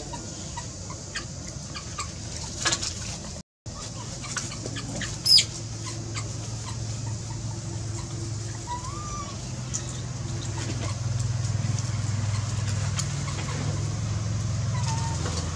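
Chickens clucking in the background, with scattered short high squeaks and one loud, high, falling squeak about five seconds in. A low engine hum grows louder in the second half.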